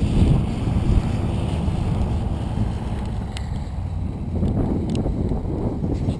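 Wind buffeting an action camera's microphone: a steady, low rumbling rush.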